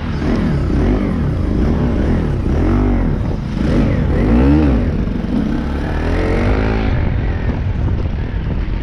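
Bajaj Pulsar NS single-cylinder motorcycle engine revving up and down several times while riding, over a heavy low rumble of wind on the microphone.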